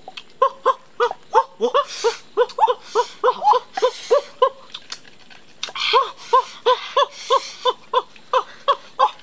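Rapid, repeated sucking of cooked snails out of their shells, each suck a short squeaky pull, about four or five a second, with a few breathy slurps between.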